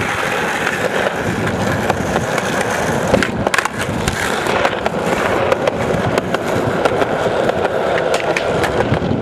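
Skateboard wheels rolling over rough pavement, a steady grinding rumble dotted with many small clicks and knocks from the board, the sharpest knock about three and a half seconds in.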